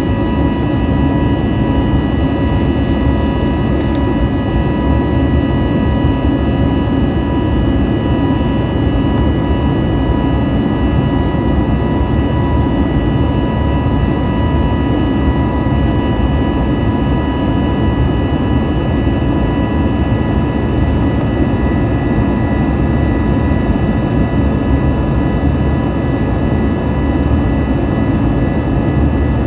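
Airbus A320neo jet engines running steadily: a constant low rumble with several steady high-pitched whining tones over it.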